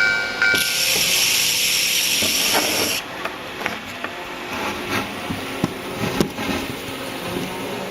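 Model train running past a TOMIX TCS automatic level crossing: a hiss for the first couple of seconds, then light, irregular clicks and rattles of the wheels on the track. The crossing's electronic two-tone warning bell cuts out about half a second in.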